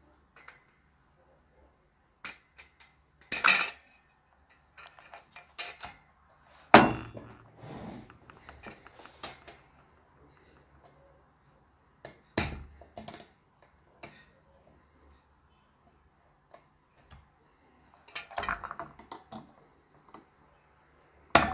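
Small pliers clinking and scraping against a metal mini USB desk fan while working at a stubborn screw that won't turn: scattered sharp metallic knocks a few seconds apart, with light ticks between.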